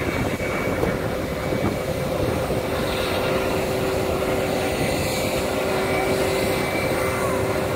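Jet airliner engines running at idle while the planes taxi and line up, a steady rumble with a steady whine that does not rise.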